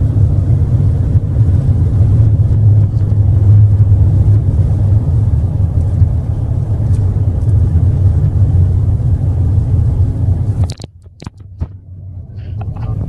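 Steady low rumble of a vehicle driving at highway speed, heard from inside the cab. It drops away suddenly near the end and builds back up over the last two seconds.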